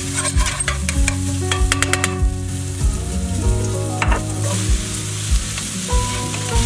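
Diced onions sizzling in oil in a stainless steel pan while a spatula stirs them, scraping and clicking against the pan in the first couple of seconds and again about four seconds in. The sizzle carries on steadily, under quiet background music with a steady beat.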